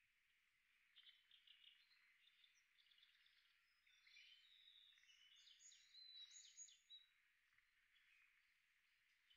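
Faint forest birdsong: short chirps and trilled phrases from small birds, busiest about halfway through.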